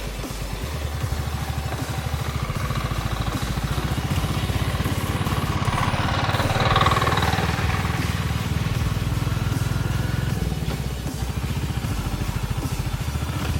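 Small motorcycle engine running steadily while being ridden, with a brief swell of louder road noise about halfway through.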